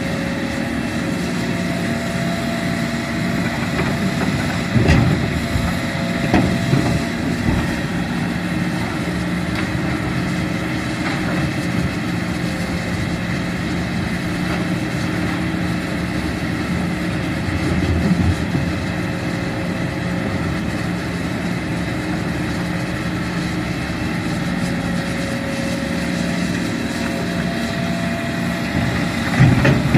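Diesel engine of a Hitachi Zaxis 210F hydraulic excavator running steadily as it digs earth and swings loads into a dump truck. Several loud thumps and knocks stand out, a few about five to eight seconds in, one around eighteen seconds and more near the end.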